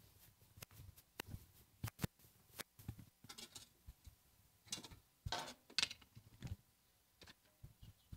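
Faint irregular footsteps and light knocks and clatter from carried garden tools and gear, with a few short rustling scrapes in the middle.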